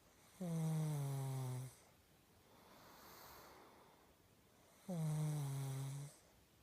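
A pug snoring loudly in its sleep: two long, pitched snores about four and a half seconds apart, each dropping slightly in pitch, with softer breathing between them.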